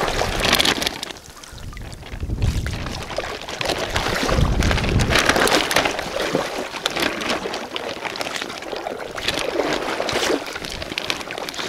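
Seawater splashing and trickling as a gill net is lifted and pulled through it by hand. The sound comes and goes in uneven splashy stretches, loudest a few seconds in and again near the end.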